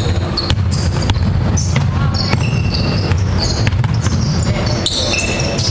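A basketball being dribbled on a hardwood gym floor, with repeated bounces and players' shoes squeaking as they cut and defend.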